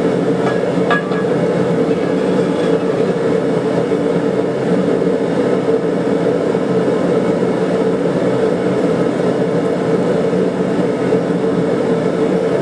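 Forge running steadily, a constant loud drone with a fixed hum, with a couple of faint clicks about a second in.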